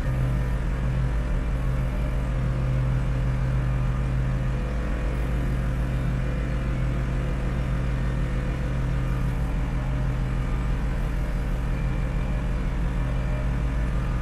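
Massey Ferguson 4707 tractor's diesel engine running steadily as it pulls a back blade, a low even drone that barely changes.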